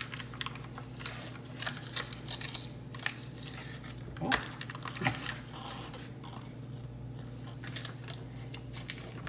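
A spoon scooping cream cheese into a bowl of shredded chicken: scattered small clicks and scrapes of the utensil against the container and bowl, with a slightly louder one about four seconds in. A steady low hum runs underneath.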